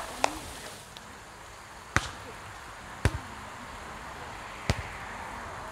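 Volleyball being struck by players' hands and arms during a rally: four sharp slaps spread over about four and a half seconds.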